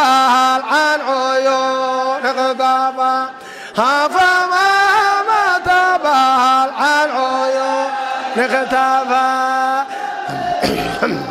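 A solo voice singing long, held, ornamented notes of an Arabic devotional dhikr chant, with a short break about three and a half seconds in. Near the end a group of voices comes in.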